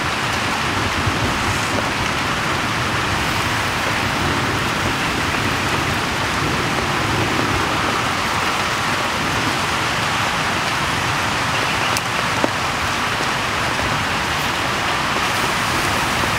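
Whole chicken spit-roasting over charcoal, its freshly brushed-on sauce and fat sizzling on the hot meat and coals: a steady, dense hiss.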